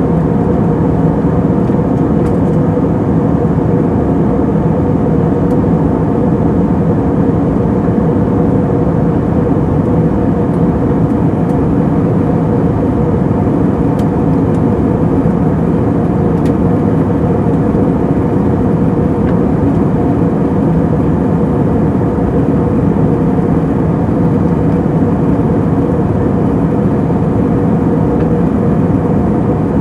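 Steady in-flight cabin noise inside an Airbus A320neo in cruise: an even rush of airflow with a steady low hum from the CFM LEAP-1A engines.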